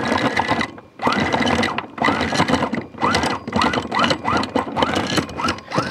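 Electric anchor windlass hauling in anchor chain: a rhythmic mechanical stroke repeating about two to three times a second over a steady motor whine, with a brief pause about a second in.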